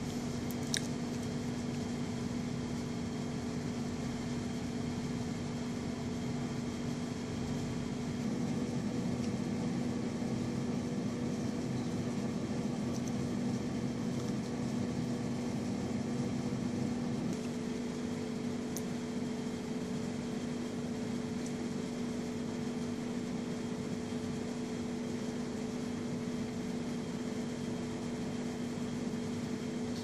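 Steady machinery hum: a constant low drone with a fainter higher tone over an even hiss, and a faint click about a second in.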